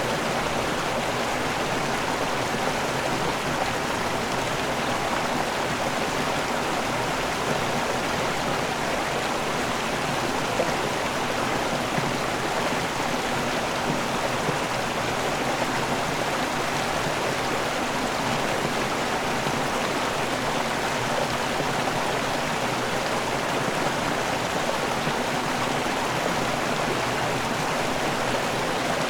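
River water pouring over a waterfall and rushing downstream: a steady, unbroken rush of water.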